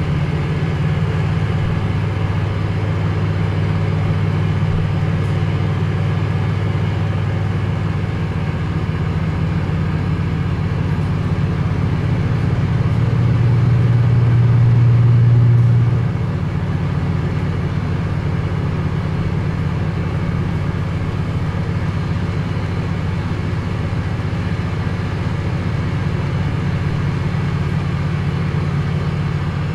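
A steady low drone made of several layered low pitches. It swells louder for a few seconds about halfway through, then settles back.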